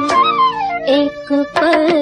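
Instrumental passage of a 1964 Hindi film song: a melody line runs down the scale above held notes, then a few short notes, then a handful of quick drum strokes near the end.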